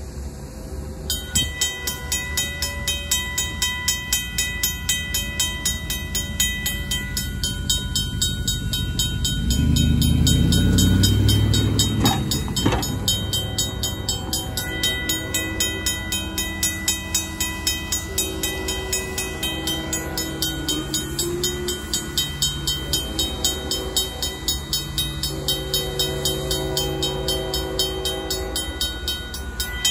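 RACO mechanical crossing bell starts about a second in and rings in rapid, even strokes as the crossing activates. A vehicle passes close by about ten seconds in. Through the second half, the approaching freight locomotive's horn sounds several times, some blasts long and some short.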